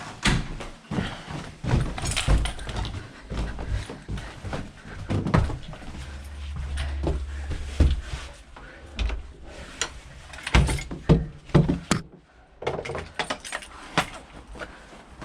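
Knocks, clunks and rustles of a plumber's gear and rubbish being carried and handled, with a brief low rumble midway.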